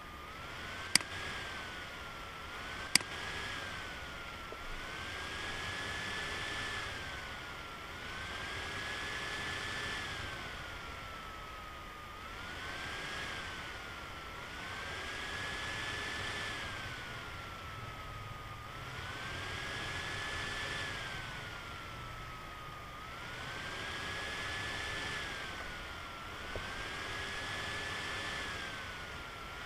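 Simulated CNC lathe machining sound from the Swansoft turning simulator: a whine that keeps rising and falling in pitch every few seconds, with a hiss that swells along with it. Two sharp clicks in the first few seconds.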